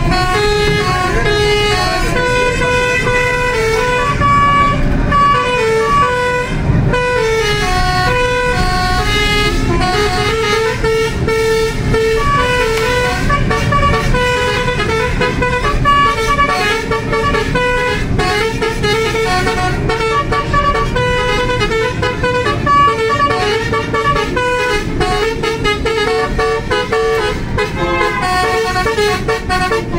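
A tour bus's Basuri musical air horn plays a tune continuously in quick stepped notes, over the low noise of the moving bus.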